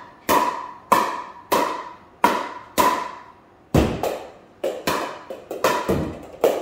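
Pickleball paddle striking a plastic pickleball over and over: sharp, ringing pops about every 0.6 s. Near the middle a heavier, deeper knock breaks the rhythm, and the hits then come quicker and less even.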